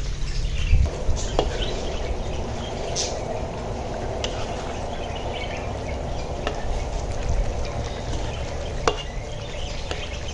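Eggs and chicken sizzling in chili paste in a wok while a spatula stirs, with a few sharp clicks of the spatula against the pan. Birds chirp faintly in the background.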